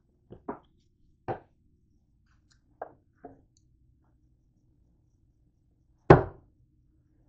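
Light knocks and taps, then one louder thump about six seconds in as the hinged lid of a George Foreman contact grill is handled.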